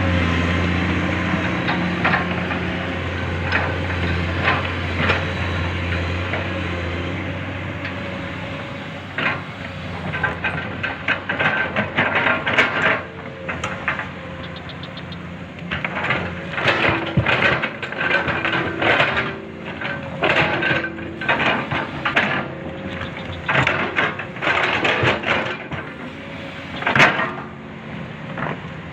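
Hydraulic excavator engine running steadily, its hum easing over the first several seconds. From about ten seconds in come many short, irregular scraping and clattering noises.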